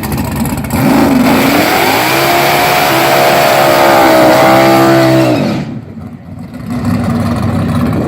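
Car engine revved up and held at high revs for about three seconds, then dropping sharply off and settling back to a lower, steady running note.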